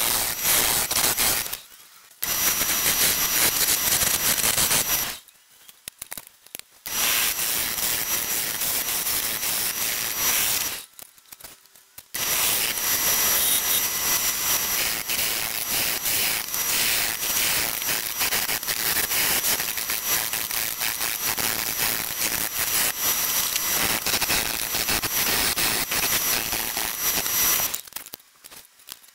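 Gouge cutting a spinning red mallee burl on a wood lathe: a rough, gritty scraping hiss in long passes, broken by short breaks about two seconds in, around six seconds in and around eleven seconds in where the tool comes off the wood. The cutting stops near the end.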